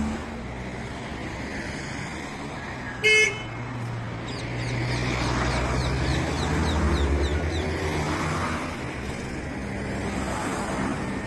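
Street traffic running steadily, with a single short car-horn toot about three seconds in.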